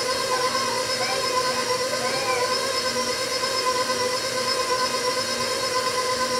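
Electric tilt-head stand mixer running steadily, its motor giving a constant whine as the beater turns through cookie dough in a steel bowl.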